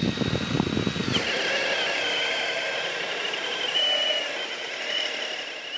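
FLEX cordless hammer drill boring a 1.5-inch spade bit into a wooden beam. The motor's whine drops in pitch about a second in as the bit bites, then it labours steadily under heavy load with a wavering whine until it cuts off abruptly.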